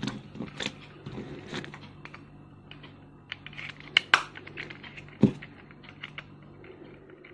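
Hard plastic clicking, tapping and rattling as a small plastic tripod selfie stick is handled, its legs folded and its phone clamp turned, with a few sharper clicks around four and five seconds in.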